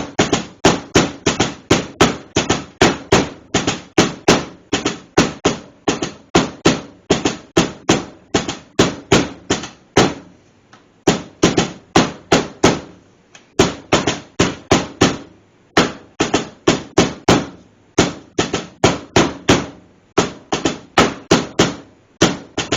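Meat tenderizer pounding a slice of boneless pork loin, loud sharp blows at about three to four a second in runs with short breaks. The beating thins the meat and punctures it to make cube steak.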